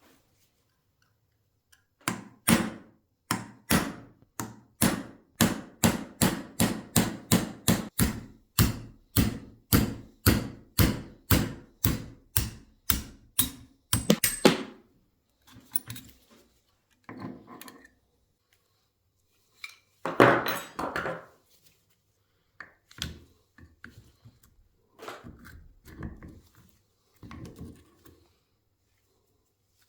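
A fast run of sharp, evenly spaced knocks, about three a second, for some twelve seconds, as from repeated tool or hammer blows. A few scattered knocks and one longer, louder clatter follow about twenty seconds in.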